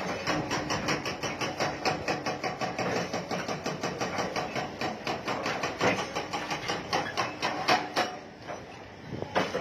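Excavator demolition of a concrete frame with timber formwork: a rapid run of knocks and clatter, several a second, over a low machine sound. The knocking stops about eight seconds in, and one more loud knock comes near the end.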